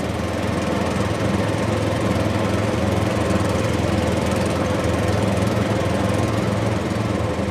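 Heavy-haul tractor unit's diesel engine running steadily under load, pulling a low-loader trailer carrying a 100-ton excavator up a steep hairpin climb: a continuous low drone.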